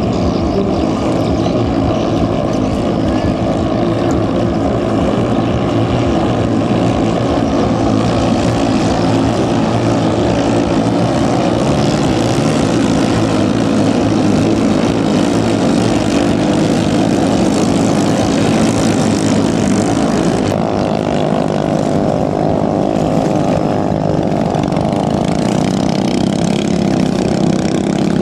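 Small 6–7 hp ketinting racing-boat engines running flat out: a loud, steady engine drone.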